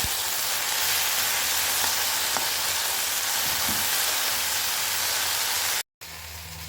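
Okra frying in hot oil in a pan, a steady sizzle that cuts off abruptly near the end.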